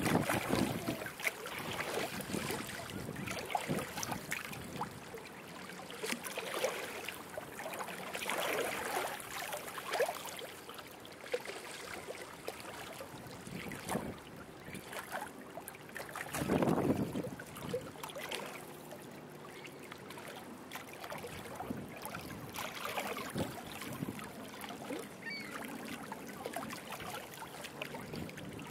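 Gusty wind buffeting the microphone, strongest in two big gusts at the start and about halfway through, over small waves lapping and trickling at a rocky river shore.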